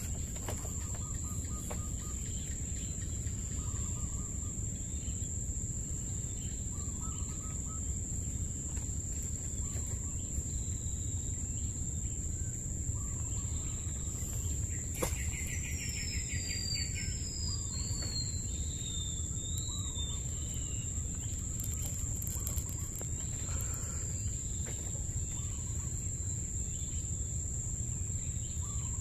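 Waterside mangrove ambience: a steady high-pitched insect trill over a low background rumble. About halfway through a bird calls, first a quick rattling trill and then a few descending whistled notes.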